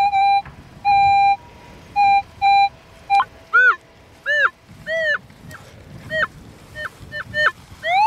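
Minelab CTX 3030 metal detector giving its target tone over a strong buried signal as the coil is swept: about five short beeps of the same pitch, then three beeps that rise and fall in pitch, then a quick run of short pips. The detectorist takes the signal for a large target, perhaps a hoard.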